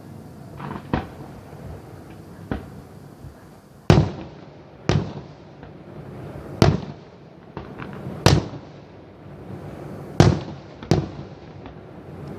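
Fireworks going off: a string of sharp bangs at irregular intervals, a few faint ones first, then louder reports from about four seconds in, each trailing off briefly.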